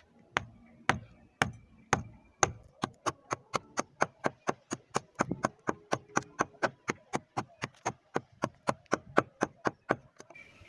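Small hand pick chipping hardened concrete crust along a concrete roof ridge: a run of sharp knocks, about two a second at first, then quickening to three or four a second, stopping shortly before the end.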